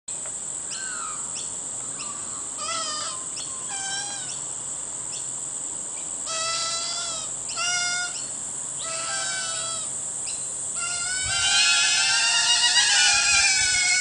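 Fledgling channel-billed cuckoos begging with short, wavering, harsh calls, one at a time at first, then several at once in a louder continuous din from about eleven seconds in, as a currawong foster parent arrives to feed them.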